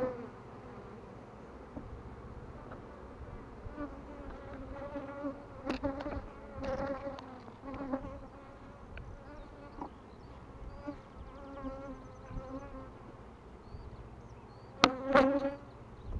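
Honeybees buzzing in flight around the hive entrances, the buzz swelling and fading as individual bees pass close. The loudest pass comes near the end.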